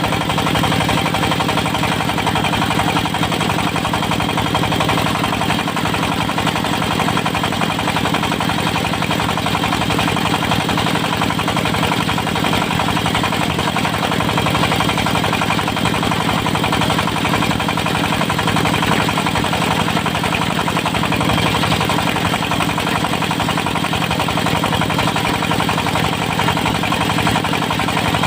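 Diesel engine driving a circular-saw sawmill, running steadily at a constant speed with no pauses.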